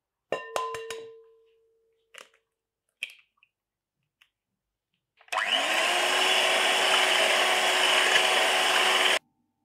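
A few sharp taps on a glass mixing bowl, the glass ringing briefly, as an egg is cracked on it, followed by a few faint ticks. About five seconds in, an electric hand mixer starts, its motor rising in pitch as it spins up, then beats raw eggs steadily for about four seconds and cuts off suddenly.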